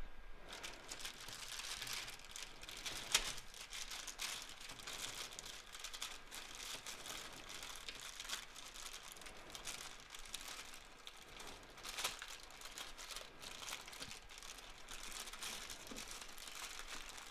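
Figurine packaging being handled and pulled at, crinkling and rustling steadily with scattered sharp crackles.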